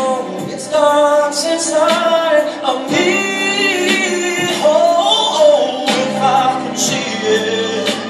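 A group of voices singing a song together.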